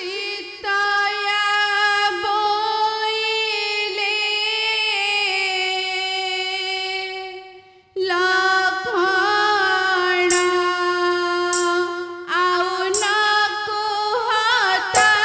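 A high female voice singing long, held notes with a wavering vibrato, in the sung style of an Odia Ramanatak folk play; the song breaks off briefly about halfway for a breath, then resumes.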